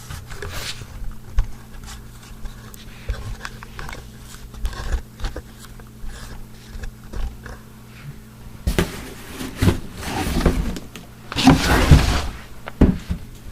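Handling noise from a boxed RC car kit being moved about: scattered knocks and clicks, with two longer rustling scrapes, one about nine seconds in and the louder one around eleven to twelve seconds, over a steady low hum.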